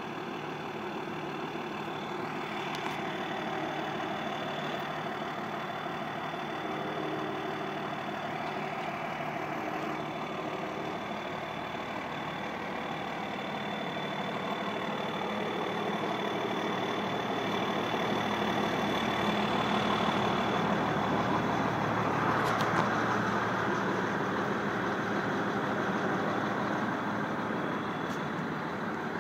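Case IH 2366 combine's turbocharged diesel engine idling, with a steady high-pitched turbo whistle over the engine noise.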